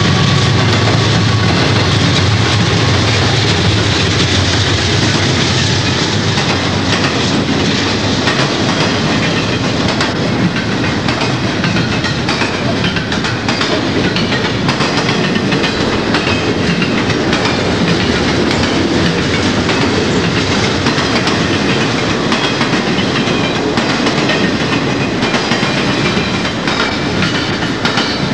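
A Conrail diesel-hauled double-stack container train passing close by at speed: a low locomotive engine hum fades over the first few seconds, then the container well cars roll past with steady wheel and rail noise and repeated clicking over the rail joints.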